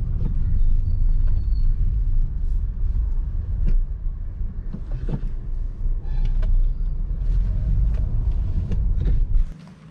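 Car driving on a road, heard from inside: a steady low rumble of engine and road noise with a few scattered clicks and knocks. It cuts off sharply near the end.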